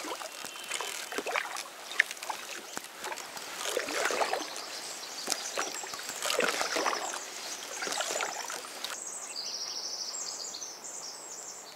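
Double-bladed kayak paddle dipping and pulling through calm lake water beside an inflatable kayak, a splash and drip with each stroke, roughly one stroke a second.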